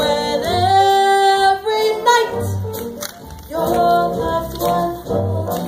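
A woman singing into a microphone with a small live band of drums and keyboard, holding long notes.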